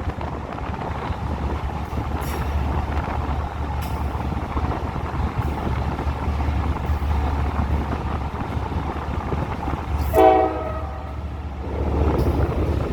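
Steady rumble of a train running. About ten seconds in comes a short, loud horn blast lasting about half a second.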